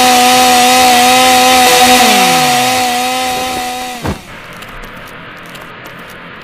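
Chainsaw sound effect running at high, steady revs, with a lower tone sliding down about halfway through. It cuts off about four seconds in with a short thud, leaving a quieter hiss with faint ticks.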